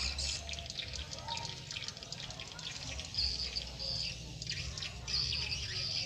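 Swiftlet calls: rapid chittering chirps and clicks, with longer buzzy trills about three and five seconds in, from a swiftlet-house call recording playing from rooftop tweeters while live swiftlets circle the building. A low rumble runs underneath.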